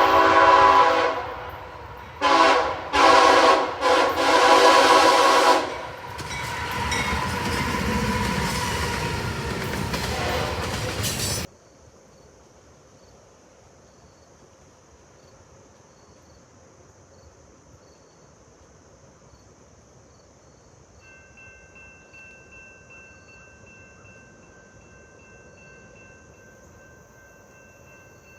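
Diesel locomotive air horn blowing a chord: a long blast ending about a second in, then two short blasts and a longer one, followed by the rumble of the passing train. About eleven seconds in the sound cuts off suddenly to a much quieter background with faint steady high tones.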